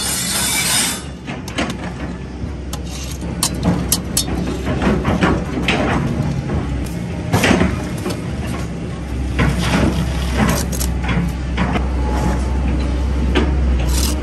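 Bricklaying with a steel trowel: irregular sharp clicks and knocks as the trowel taps and scrapes bricks and mortar, over a steady low rumble that grows louder about nine seconds in.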